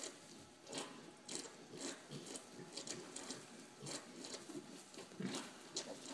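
Newborn Chester White piglets snuffling and rooting in straw close by: irregular short sniffs and rustles, several a second.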